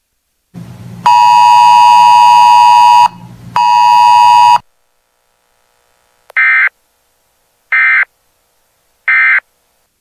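Emergency alert tones: a loud, buzzy alert tone sounds for about two seconds, breaks off briefly and sounds for about another second, then three short bursts of digital data tones follow about a second and a half apart, the SAME end-of-message code that closes a weather alert broadcast.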